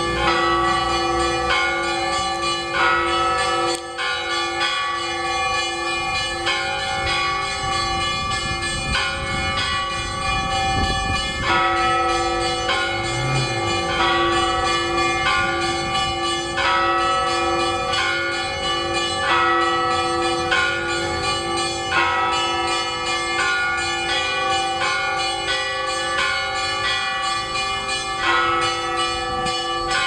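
Russian Orthodox church bells ringing a peal: several bells of different pitches are struck in a steady repeating pattern, with a fresh stroke roughly every one and a half seconds over a sustained, pulsing lower bell tone.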